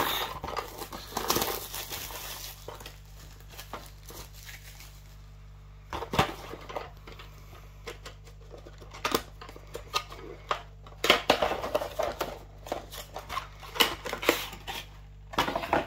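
Plastic miniature-kit sprues and their packaging being handled: scattered rustles and light plastic clicks, busiest in the first couple of seconds and again in the last few, over a low steady hum.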